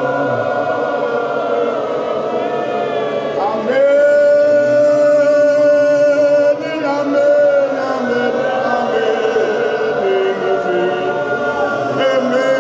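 A group of voices singing a hymn unaccompanied, led by a man singing into a microphone, with a long held note a few seconds in.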